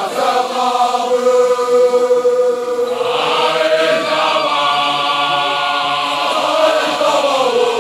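Group of Basotho male initiation graduates (makoloane) chanting together, the voices holding long drawn-out notes that shift in pitch partway through.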